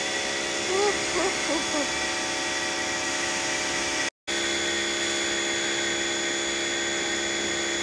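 Pressure washer running steadily: a motor whine over the hiss of the water jet from the spray wand. The sound cuts out for a moment about four seconds in, then carries on.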